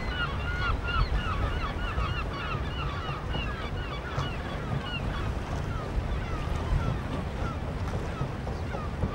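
A flock of birds calling, many short honking calls overlapping, thickest at the start and thinning out, over a steady low rumble.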